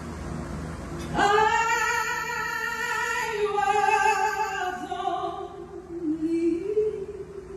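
A woman singing a ballad live, coming in about a second in with a long held note and then sliding to a lower held note, over soft sustained instrumental accompaniment.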